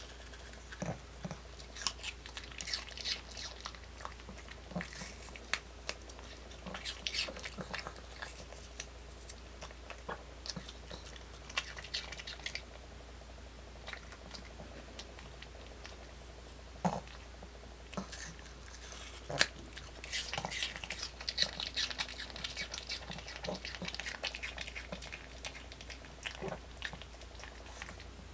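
A dog crunching and chewing pieces of apple, in several bursts of crisp crunching with short pauses between them and a few single sharp clicks.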